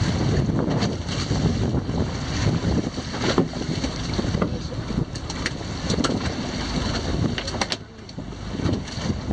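Wind buffeting the microphone over the rush of sea water along a fishing boat's hull, with a few brief splashes as fish on a multi-hook line are hauled to the surface.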